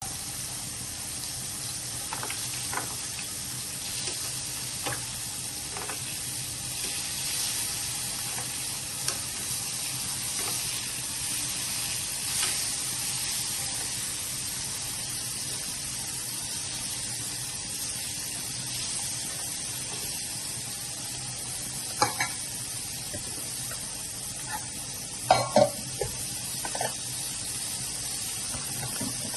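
Chicken skin frying in hot oil with a steady sizzle. Now and then a utensil stirs and knocks against the pan, loudest in a few clatters near the end.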